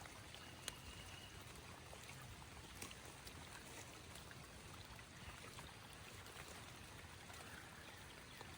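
Faint, steady running water: pond overflow trickling in the rain, with a few soft ticks.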